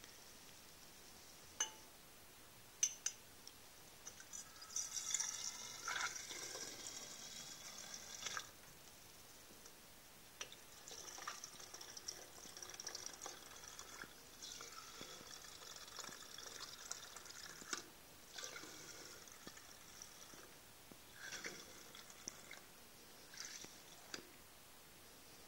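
Faint sound of wine running from a siphon tube's metal filling nozzle into a glass bottle, gravity-fed from a cask. The flow comes in several stretches, with a few sharp clicks of the nozzle being handled near the start.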